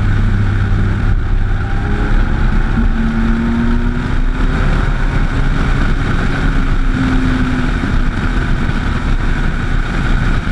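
Motorcycle engine running at road speed, largely buried under heavy wind rumble on a bike-mounted camera's microphone. The engine note rises a little twice as the bike accelerates out of bends.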